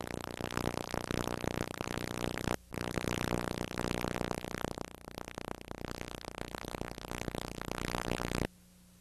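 Synthesizer music, cutting out briefly about two and a half seconds in, then dropping to a faint low hum near the end.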